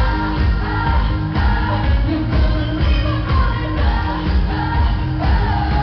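Female lead singer singing live into a microphone over a pop band, with loud drums and bass keeping a steady beat.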